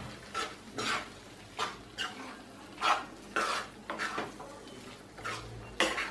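Steel spoon scraping and knocking against a nonstick kadai as soya chunks in masala are stirred, about two strokes a second.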